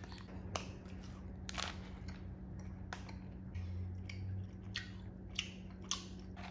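A person chewing a pineapple-ring gummy candy: faint, irregular clicks and smacks of the mouth.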